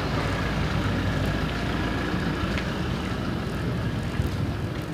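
Steady low wind rumble on the microphone of a moving bicycle, with road noise and a few faint ticks.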